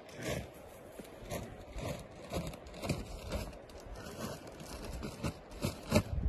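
Hooves of a young Arabian filly stepping and shuffling on dry dirt: irregular crunching and scraping steps, with a couple of louder ones near the end.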